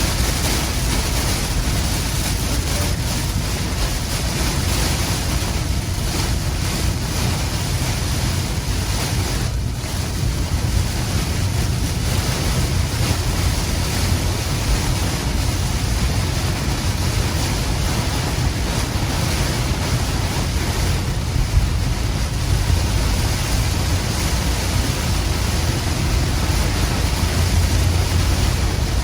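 Heavy rain pouring on a moving car and its tyres on the wet road: a steady, dense hiss with a strong low rumble underneath.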